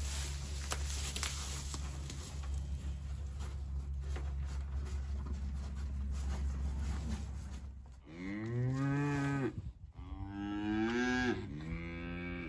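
A cow mooing twice, two long calls near the end about two seconds apart, the second breaking up before it stops. Before them there is a steady low hum and light rustling.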